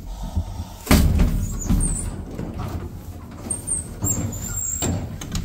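Camera handling noise inside an elevator car: a loud knock about a second in, then bumping and rubbing, with faint high squeaks near the end.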